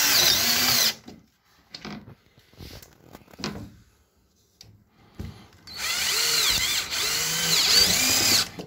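Cordless drill-driver driving screws into the grille bars of a window screen frame: a run that stops about a second in, a few light knocks as the parts are handled, then a longer run of about three seconds near the end, the motor's pitch dipping and rising as the screw seats.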